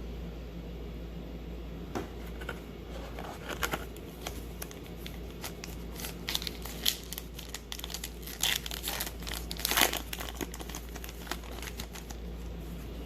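Baseball card pack wrapper crinkling and tearing as a pack is opened by hand, in irregular bursts, loudest about two-thirds of the way in.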